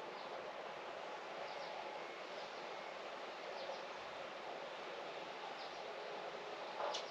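Outdoor garden ambience: a steady, even hiss with faint short bird chirps scattered throughout, and one sharper, louder chirp just before the end.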